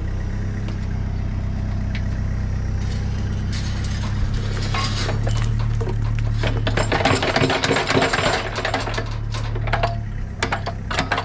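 John Deere compact excavator's diesel engine running steadily, while from about four seconds in its bucket dumps dirt and stones with a rattling, clattering rush of falling soil that is loudest near the middle.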